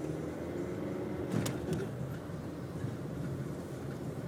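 A car driving: steady low engine and road rumble with a faint hum, broken by two sharp clicks about a second and a half in.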